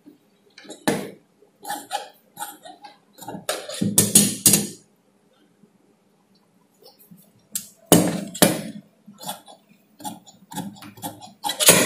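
Large steel tailor's shears cutting cloth and being picked up and laid down on the cutting table: a run of irregular snips, clicks and knocks, with louder clusters about four and eight seconds in.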